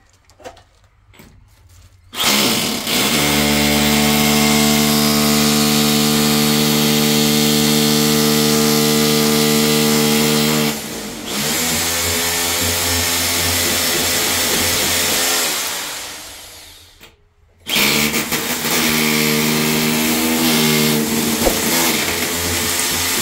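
Corded electric drill boring into a tiled bathroom wall. It starts about two seconds in and runs at a steady pitch, dips briefly, then winds down with falling pitch and stops. It starts again about a second later.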